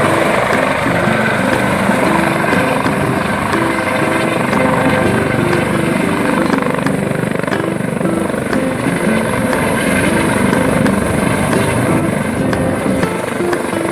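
Helicopter descending to land, its rotor and turbine noise steady.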